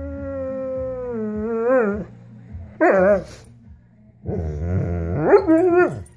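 Doberman 'talking': a long drawn-out howl that wavers near its end, a short yelp-like call about three seconds in, then a longer howl that rises and falls.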